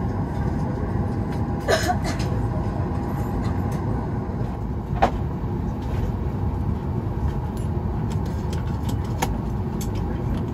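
Steady low rumble inside the cabin of a Boeing 737-8 MAX airliner, with a couple of sharp clicks about two and five seconds in.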